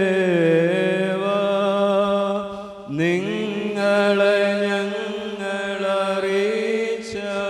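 A single male voice chanting a West Syriac liturgical hymn in long held notes with slow turns of pitch. There is a brief break for breath about three seconds in before the next phrase slides up into place.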